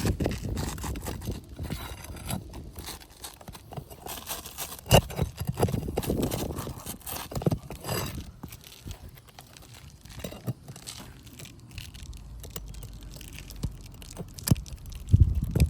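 Work on roof shingles: rustling, scraping and crinkling with scattered sharp knocks at uneven intervals, the loudest about five seconds in and near the end.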